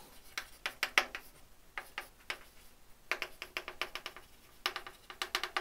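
Chalk writing on a blackboard: rapid taps and short scratches as letters are formed, coming in clusters that grow denser over the second half.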